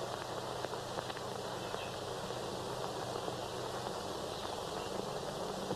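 Steady hiss and low hum of an old film soundtrack, with a few faint scattered clicks.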